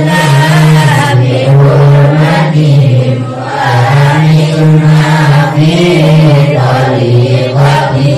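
Male voice chanting an Arabic devotional prayer in long, held melodic lines that bend slowly in pitch.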